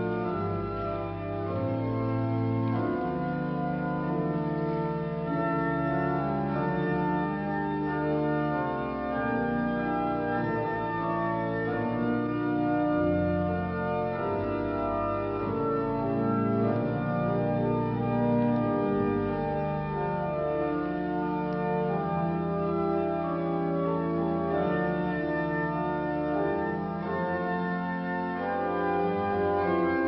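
Church organ playing slow, held chords over a deep bass line as a recessional after the benediction.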